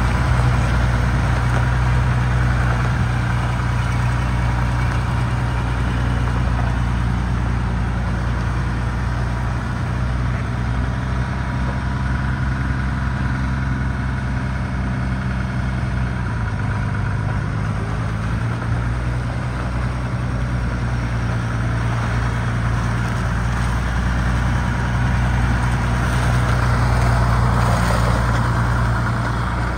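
International 3688 tractor's diesel engine running steadily as the tractor is driven slowly. The engine note drops a little about halfway through and grows louder and fuller near the end.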